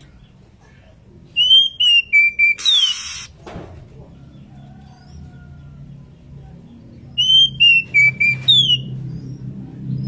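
Female Oriental magpie-robin (kacer) in breeding condition, calling to a companion. It gives two whistled phrases several seconds apart, each a few clear notes ending in a falling slur. A short burst of hiss follows the first phrase.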